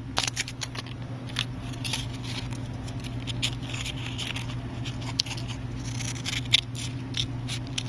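Masking tape being cut and trimmed with a small cutting tool: a string of short, sharp snips and scratches, over a steady low hum.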